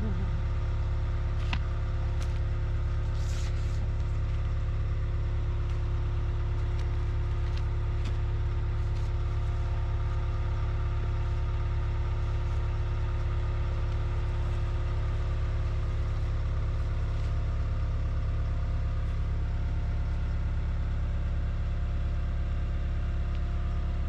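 A trencher's engine running steadily at one constant speed, a low hum with a few faint clicks.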